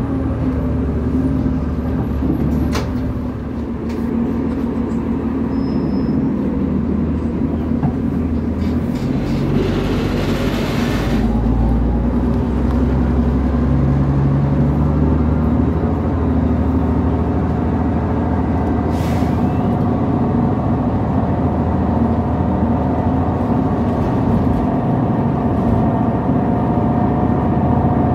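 City bus heard from inside the cabin while it drives: engine and drivetrain running under road noise, the pitch gliding up and down as the bus changes speed. About ten seconds in there is a brief hiss of air.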